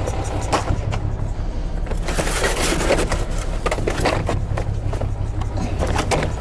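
Coils of plastic irrigation pipe being handled and dragged across a truck's metal bed, with repeated knocks and scrapes, heaviest a couple of seconds in. Under it a truck engine idles with a steady low rumble.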